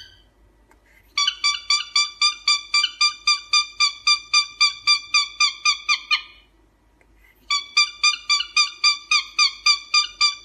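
Cockatiel calling in a rapid, even run of identical chirping whistles, about five a second, for some five seconds. After a short pause a second run begins.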